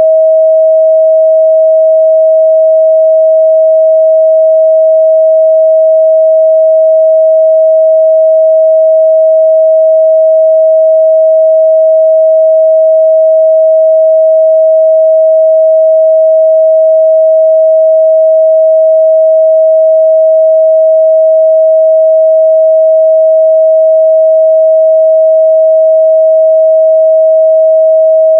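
A steady 638 Hz sine-wave test tone, a single pure pitch held loud and unchanging.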